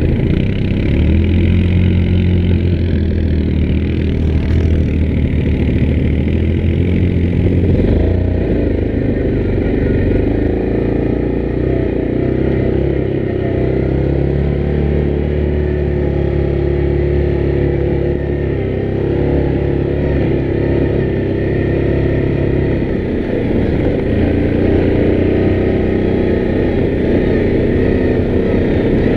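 Yamaha Grizzly 700 ATV's single-cylinder four-stroke engine running under way on a trail. The engine note rises and falls several times as the throttle changes.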